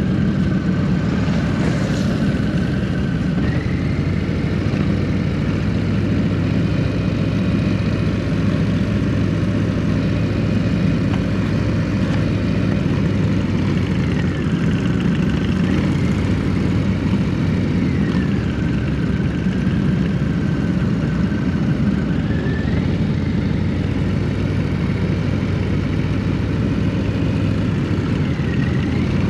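Motorcycle engine running at steady cruising speed, heard from the rider's own bike, with a constant rush of wind and road noise. A faint high whine rises and falls in pitch several times.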